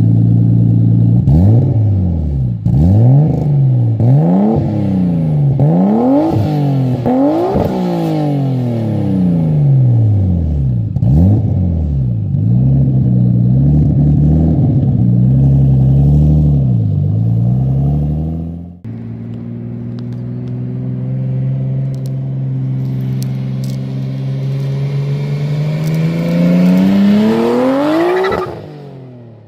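Nissan R32 Skyline's RB straight-six revving through a straight exhaust of a 3-inch downpipe, an Autobahn test pipe in place of the catalytic converter and a Reinhard catback. Over the first half it is blipped up and down again and again. After a cut it holds a steady note, then revs up hard to a peak near the end and drops off. The test pipe gives a louder, deeper, throatier tone.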